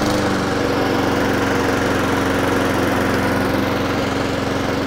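Honda GCV160 single-cylinder engine on a walk-behind lawn mower, running at a steady speed with an even, unchanging hum.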